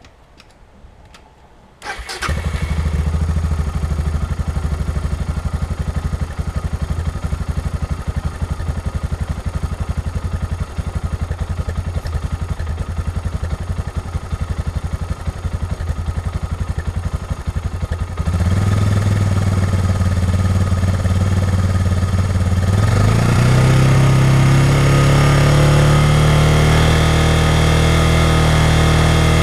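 Suzuki DR650's single-cylinder four-stroke engine starts up about two seconds in and idles with an even beat. About two-thirds of the way through it gets louder, then the revs climb smoothly and hold at a higher, steady speed.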